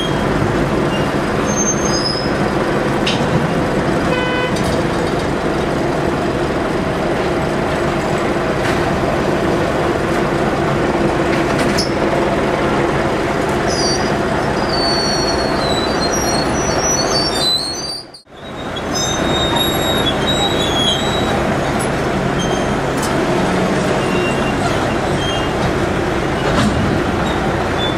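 Diesel engine of a tracked sideboom tractor running steadily under load as the machine crawls along, with scattered high metallic squeals. The sound cuts out briefly about two-thirds of the way through.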